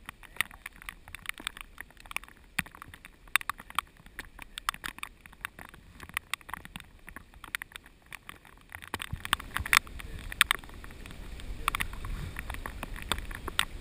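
Raindrops ticking on an action camera's waterproof housing: many irregular sharp taps. A low rumble joins about nine seconds in.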